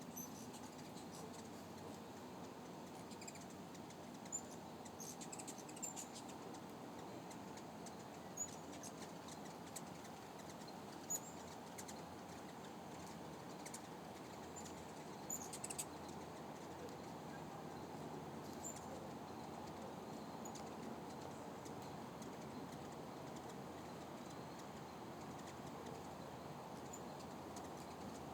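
Hummingbirds at feeders giving short, sharp, high chirps, a handful scattered through, over a steady whirring hum.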